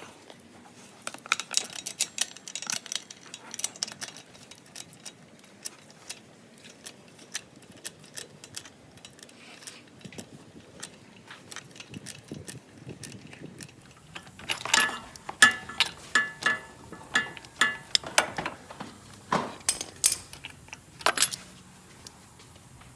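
Metal tools and parts clinking and clattering in irregular taps, with a dense run of clinks about two-thirds of the way through and a few sharper single clinks near the end.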